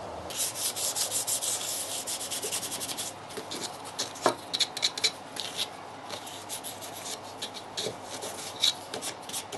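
Hand sanding a wooden board with a small folded piece of sandpaper: quick back-and-forth scratchy strokes, close together for the first three seconds, then shorter and more spaced out. There is one light knock about four seconds in.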